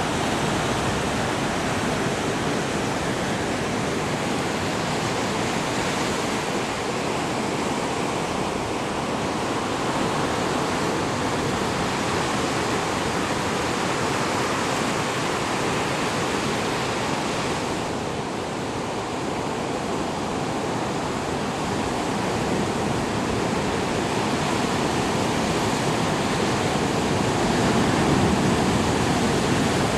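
Atlantic surf breaking on rocks and reef just offshore: a continuous rush of waves, swelling a little louder near the end.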